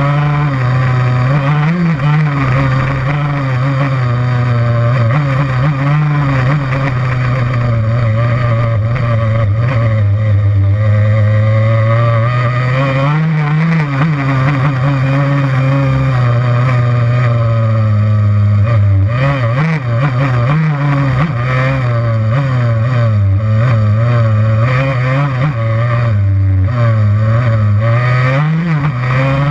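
Yamaha YZ85's 85 cc two-stroke single-cylinder engine running hard while riding a dirt trail, its pitch rising and falling again and again as the throttle is worked.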